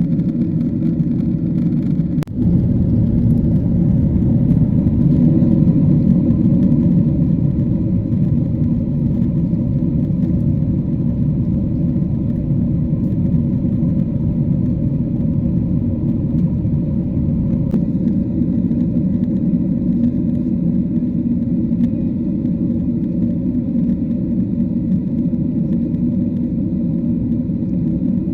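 Steady low rumble of a Boeing 777-300 in cruise, engine and airflow noise heard from inside the cabin. There is a brief break in the sound about two seconds in.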